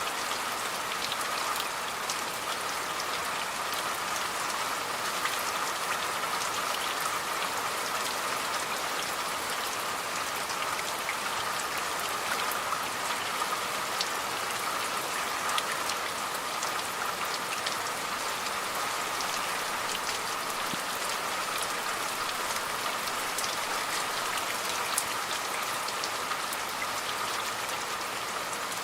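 Steady rain falling, a continuous hiss with many fine drop ticks of rain hitting a surface.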